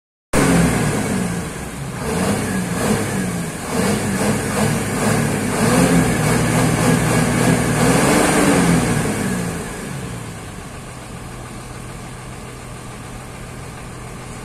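Diesel coach engine revved repeatedly through its exhaust, the pitch rising and falling with each rev, then settling to a steady idle about ten seconds in.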